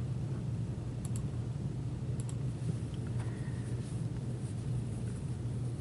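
Steady low hum with a few faint clicks, about a second in and again just after two seconds in.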